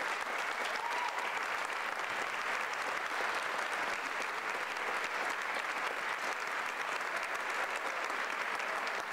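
Theatre audience applauding steadily, with one brief cheer from the crowd about a second in.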